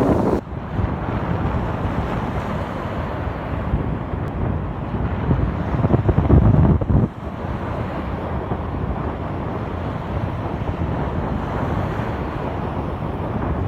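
Wind buffeting the microphone: a steady low rush of noise that swells louder for about a second and a half around halfway, then drops off suddenly.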